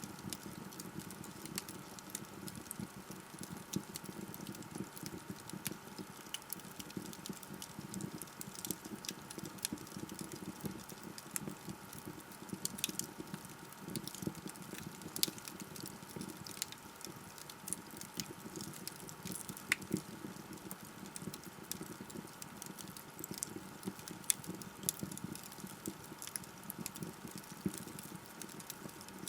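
Wood fire burning in a fireplace: a steady low rush of flames with frequent small crackles and a few sharper pops from the burning logs.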